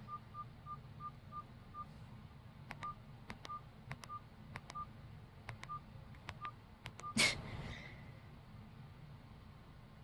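Nokia 108 keypad beeps and button clicks from key presses: a quick, regular run of short identical beeps in the first two seconds, then single beeps every half second or so. A short breathy rush of noise about seven seconds in.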